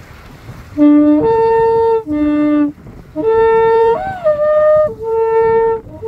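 Shofar being blown in a series of about four long blasts. Each starts on a low note and breaks up to a higher one, with a brief upward swoop in pitch about four seconds in.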